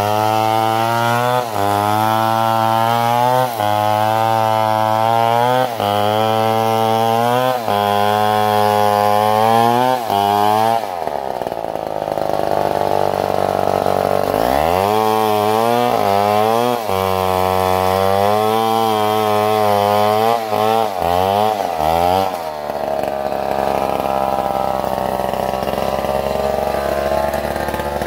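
Stihl chainsaw running at full throttle while ripping lengthwise along a coconut palm log, its engine note sagging and recovering every couple of seconds under the load of the cut. About 11 s in it eases off for a few seconds, then cuts again, and it settles to steadier, lower running for the last few seconds.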